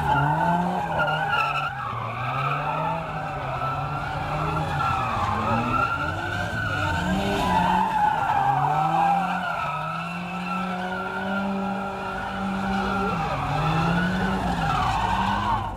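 Estate car doing burnout donuts: its tyres squeal without a break while the engine revs climb and drop again and again as the throttle is worked.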